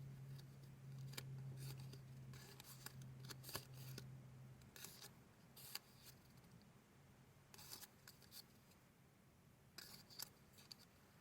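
Paper being handled: several faint, short rustles or snips, with a low steady hum underneath that stops about halfway through.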